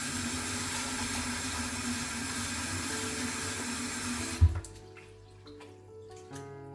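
Water running from a tap in a steady rush, stopping abruptly about four and a half seconds in with a single low thump.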